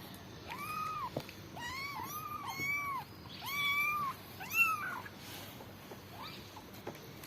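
High-pitched kitten meows, about six short arched calls in quick succession during the first five seconds, then quiet.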